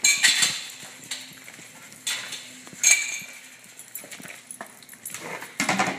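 Small dogs' claws clicking and scuffling on a hard floor, in several short bursts.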